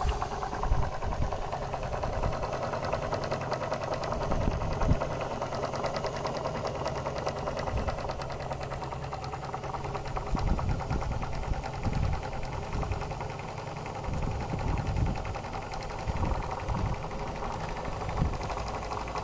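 Twin-cylinder Martin Balis model steam engine running fast on boiler steam at about 40 psi, a rapid, even mechanical beat over a steady hum, with occasional low thumps.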